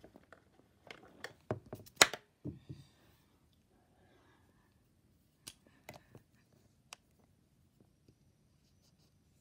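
Handling noise from a plastic slime tub and a marker on a wooden desk: a few sharp clicks and knocks, the loudest about two seconds in, then scattered quieter clicks.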